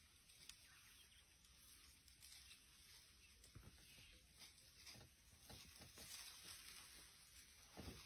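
Near silence: faint outdoor ambience with a steady light hiss and a few soft scattered ticks.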